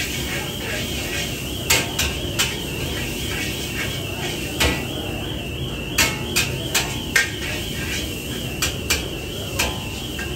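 Metal spatula clanking and scraping against a wok as noodles are stir-fried: about a dozen sharp clanks, some in quick runs, over a steady kitchen din.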